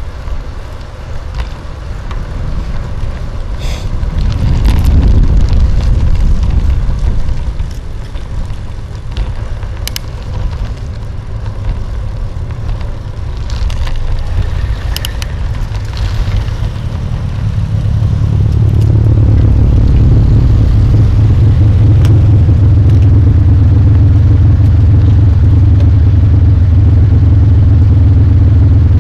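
Wind rumbling on the microphone of a bike-mounted camera while riding on pavement, with a few sharp rattling ticks. About two-thirds of the way in, the bike stops beside a pickup truck, and the truck's engine idling close by gives a steady, louder low hum.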